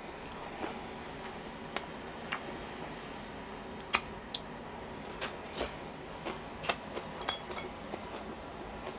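Chewing and mouth sounds of a person eating, with scattered sharp clicks of chopsticks against dishes, the loudest about four seconds in, over a steady background hiss.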